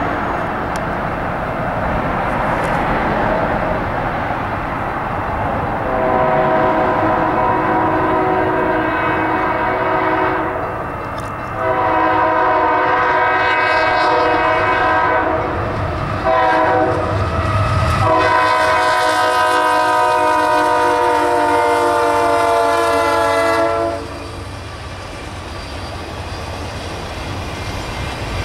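Union Pacific freight locomotive's multi-chime air horn sounding the grade-crossing signal: two long blasts, a short one and a final long one that drops slightly in pitch, over the steady rumble of the passing train.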